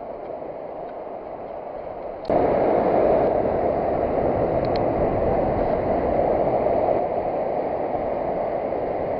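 Ocean surf washing on the beach as a steady rushing noise, which jumps suddenly louder a little over two seconds in.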